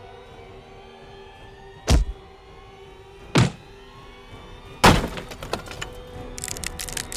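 Film fight-scene impact hits, a sharp blow about 2 s in, another about 3.5 s in, and a heavier crash about 5 s in trailing into a crackling clatter, over a sustained tense music score.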